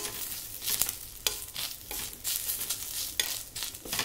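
Metal spatula scraping and tossing sliced okra across a hot iron tawa in irregular strokes, with the pan sizzling.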